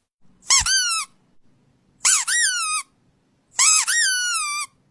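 Three high-pitched squeaks about a second and a half apart, each rising sharply in pitch and then sliding down.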